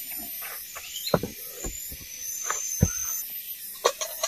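A handful of sharp knocks and clicks as a soot-blackened kettle and firewood are handled over an open wood fire, the loudest about a second in and just before three seconds. Under them runs a steady high drone of forest insects.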